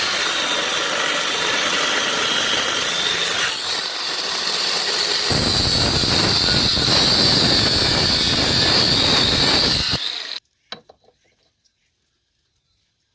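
Power tool working steel pipe, a loud grinding with a high whine. The whine rises slightly about three and a half seconds in, and a coarser rasp joins about five seconds in. It stops abruptly near ten seconds, followed by a few faint clicks.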